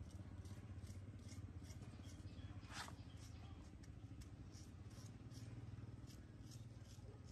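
Faint, soft scraping of a metal spoon scooping the flesh out of a halved apple in short strokes, with one stronger scrape about three seconds in, over a faint steady low hum.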